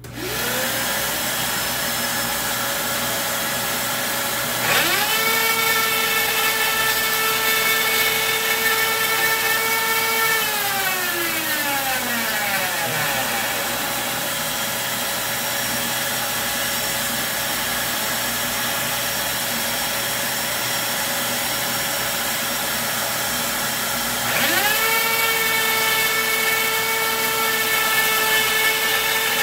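DeWalt compact router motor spinning up to a steady high whine at full speed about five seconds in, then winding down with a falling pitch over two or three seconds. It spins up again about 24 seconds in and keeps running. Under it, a second high-speed motor starts right at the beginning and runs steadily throughout.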